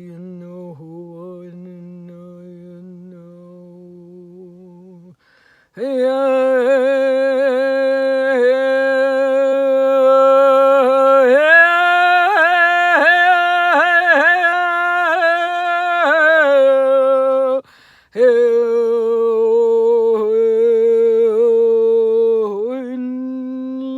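A woman's wordless vocal toning for sound healing: long held hummed notes with a wavering pitch. The notes are quieter at first, then much louder after a short breath about five seconds in. The pitch steps up around the middle and back down, with another brief breath about three-quarters of the way through.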